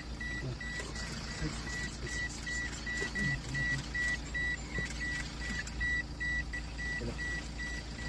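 A car's electronic warning beeper sounding steadily, about three short high beeps a second, over the low rumble of the vehicle.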